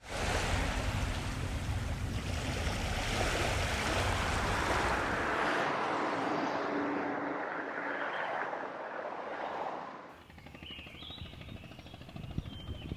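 Night street ambience: a steady wash of traffic noise from passing cars and scooters. It drops to a quieter background about ten seconds in, with small chirps.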